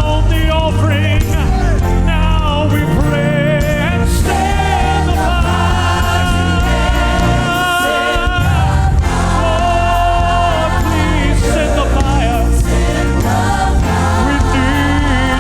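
Gospel worship song: singing with wavering, ornamented vocal lines over a band with a steady deep bass.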